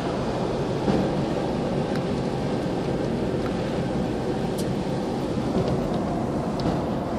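Steady road and engine noise inside a moving Mercedes car's cabin, with a few faint ticks.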